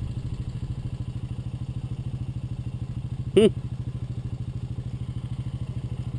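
Honda TRX 350 FourTrax ATV's single-cylinder four-stroke engine idling with an even, rapid putter. About three and a half seconds in, one short, loud pitched call cuts across it.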